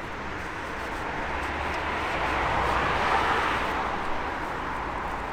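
A vehicle passing by: a rushing noise that swells to a peak about three seconds in and then fades.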